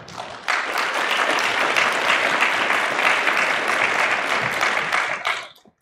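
Audience applauding, starting abruptly about half a second in and dying away near the end.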